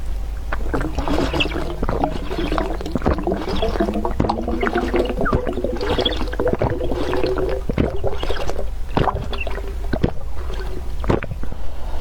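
Close-miked wet noodle sounds: sauce-coated noodles squelching, with many small sticky clicks and a pitched sucking tone through the middle.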